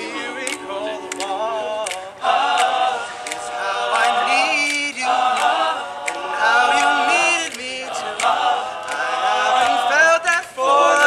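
Male a cappella group singing in multi-part harmony, with sharp percussive clicks keeping a steady beat.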